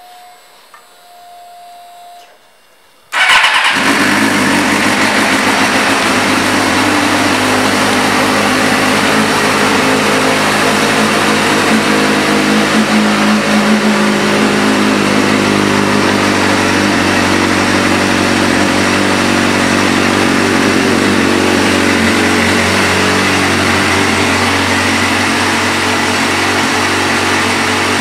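2004 Suzuki GSX-R600's inline-four engine fires up suddenly about three seconds in, after a faint hum, and then idles steadily and loudly through its Yoshimura aftermarket exhaust.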